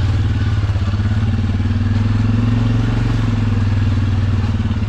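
ATV's single-cylinder engine running steadily at low revs, with a slight rise in the middle.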